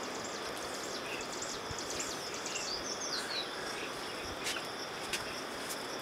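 Rural outdoor ambience: a steady high-pitched insect trill, with a few short bird chirps in the first half and a couple of faint clicks.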